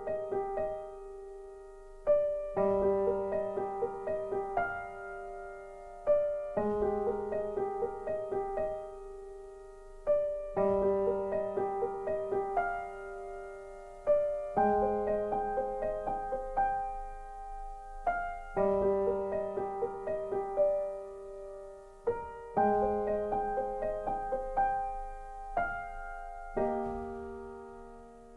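Calm background piano music: a slow phrase of sustained notes that repeats about every four seconds, each phrase struck and then left to die away.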